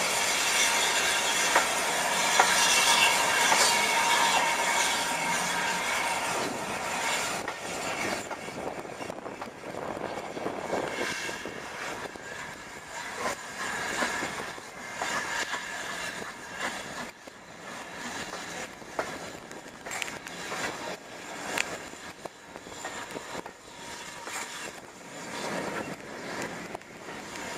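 Wheels of a railway passenger coach running on the track, heard from an open carriage window: a high, ringing wheel squeal for the first several seconds, then quieter running with irregular clicks and knocks of wheels over the rail joints.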